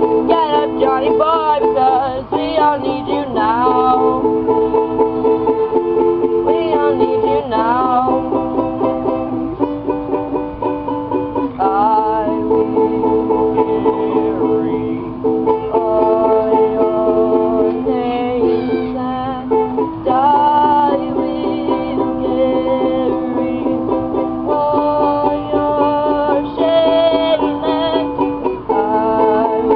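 Ukulele strummed in a steady, quick rhythm, playing a chord progression that changes every second or two.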